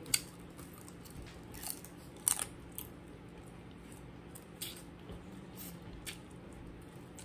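Someone eating boiled crab by hand: scattered sharp crunches and clicks of crab shell and meat being picked and bitten, with chewing. The loudest crunches come a little over two seconds in.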